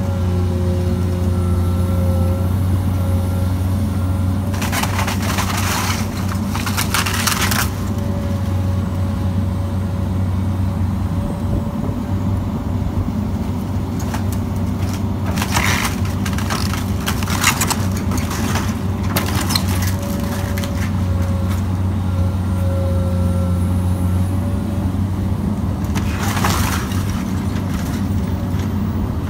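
Komatsu PC200LC hydraulic excavator's diesel engine running steadily under load with a thin steady whine over it, while the bucket tears into the wooden house. Several bursts of crunching and cracking timber break through, loudest about five to seven seconds in and again near the end.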